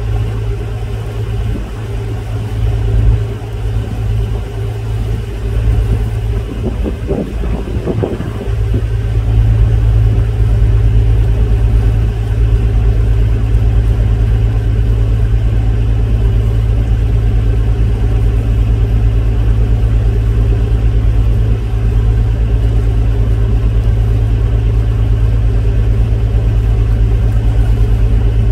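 A river boat's engine running with a steady low drone, heard from on board. It grows a little louder and more even about nine seconds in.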